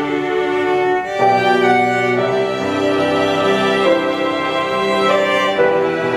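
Two violins, viola and cello playing together with bows, holding long notes in close chords and moving to new notes about a second in.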